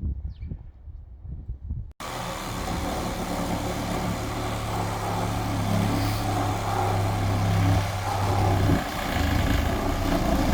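A motor running steadily at an even pitch. It starts abruptly about two seconds in and cuts off at the end.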